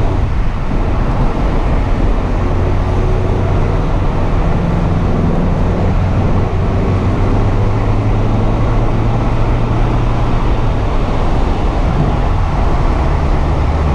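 A 2017 Mazda MX-5's 2.0-litre four-cylinder engine running with a steady, even drone at motorway speed, heard from the open cabin with the roof down, mixed with steady wind and tyre noise.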